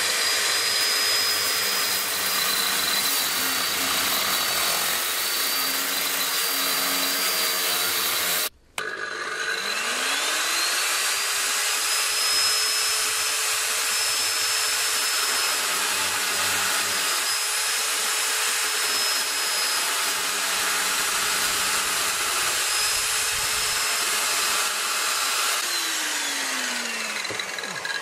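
Disc cutter running with a steady high whine as it cuts through the steel rear chassis rail. About a third of the way in the sound cuts off abruptly, then the whine rises again as the motor spins back up slowly on its soft start; near the end it winds down with a falling whine.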